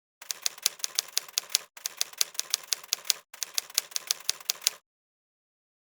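Typewriter keys clacking in three quick runs of about a second and a half each, roughly six strokes a second, with short pauses between runs; an edited-in typing sound effect set against dead silence.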